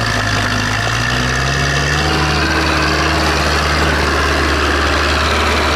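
Tractor diesel engine running steadily, rising slightly in pitch over the first two seconds and then holding.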